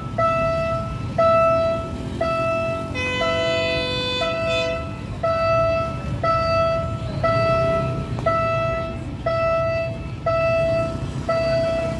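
Railway level-crossing warning alarm beeping steadily, one long electronic tone about every second. A horn sounds over it for about two seconds, starting about three seconds in.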